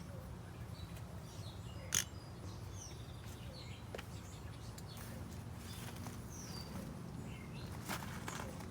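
Garden birds chirping faintly over a low steady outdoor background, with a sharp knock about two seconds in and a few more clicks near the end from the garden fountain's parts being handled as it is taken apart.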